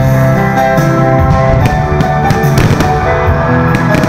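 Rock music with guitar, held chords changing every second or so, with a few sharp hits through it.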